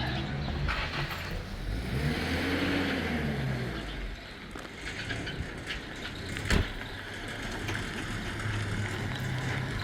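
A motor vehicle's engine running, its pitch rising and falling briefly about two to three seconds in, with a single sharp knock about six and a half seconds in.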